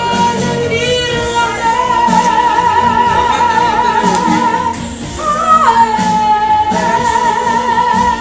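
Woman singing through a microphone over musical accompaniment, holding long notes with vibrato; about five and a half seconds in she jumps briefly to a higher note and comes back down.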